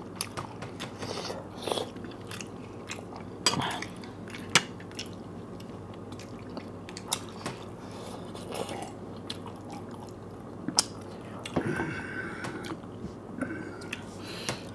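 Close-miked eating of momos and noodles: chewing and mouth sounds, with sharp clicks of a spoon and fork against the plates and bowls every few seconds.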